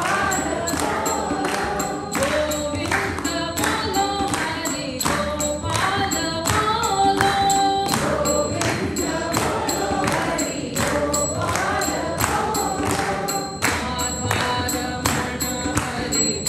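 A woman sings a devotional bhajan, accompanied by tabla played in a steady, even rhythm of strokes.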